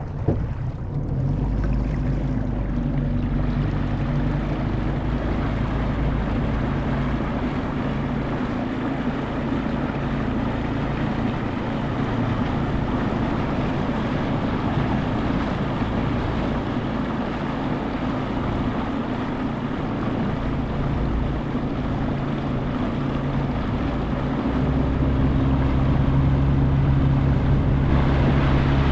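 A small boat's motor running steadily at cruising speed, with the rush of water and wind over it; the engine gets a little louder near the end.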